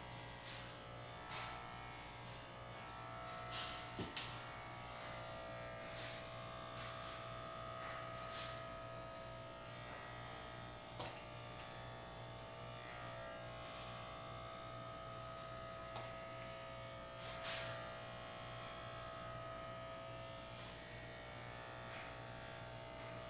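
Electric hair clippers running with a steady buzz as they shave a head down to stubble, with a few short, sharper noises now and then.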